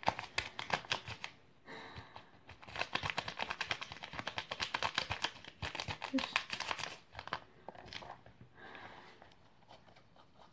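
Crinkling of a bag of cornstarch being tipped and handled, with rapid scratchy ticks of cornstarch being stirred and scraped into hand-soap slime in a small plastic tub. The rustling comes in runs of a second or several seconds, fading near the end.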